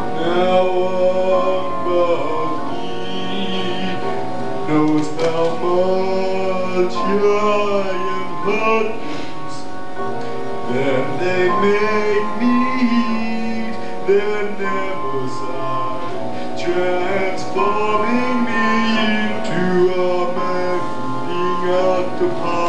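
Live opera music: a singing voice with vibrato carries a melody in phrases over steady held chords from the accompaniment.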